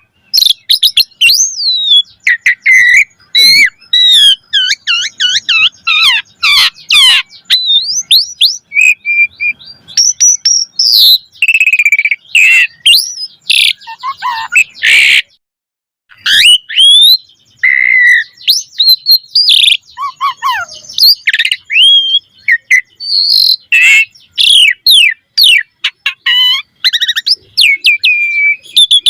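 Asian pied starling (jalak suren) singing a loud, fast, varied song of whistles, rising and falling glides and harsh chattering notes, with phrases mimicked from other birds. A short pause comes about halfway through.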